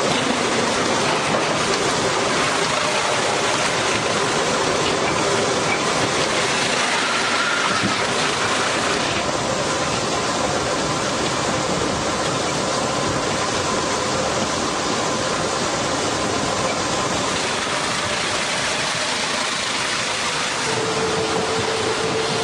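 Loud, steady running noise of heavy machinery, with a faint steady hum joining near the end.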